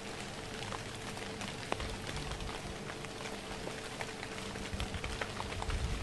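Light drizzle falling in the woods: a steady soft hiss with many small, scattered drop ticks.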